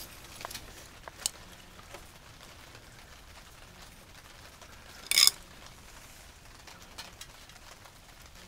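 A steel quiet baffle being worked into a chrome motorcycle exhaust tip by hand: a few light clicks, then one brief louder scrape about five seconds in.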